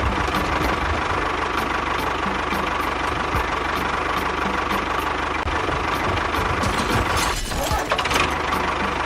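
Tractor engine running steadily at idle with a regular knocking beat. A few short sliding tones come in near the end.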